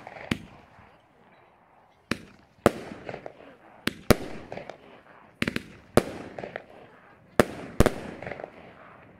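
Firework battery (cake) firing aerial shots that burst overhead. Sharp bangs come in quick pairs about every one and a half seconds, with crackling after several of them.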